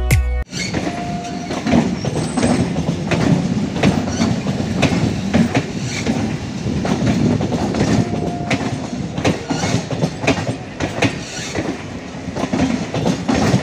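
Background music cuts off about half a second in. Then an electric suburban local train (EMU) runs alongside, with a steady rumble and the irregular clickety-clack of its wheels over the rail joints.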